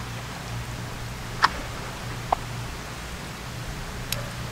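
Beer poured from a brown glass bottle into a tumbler: a steady hiss of pouring liquid over a low hum. A few short sharp chirps cut through, the loudest about one and a half seconds in.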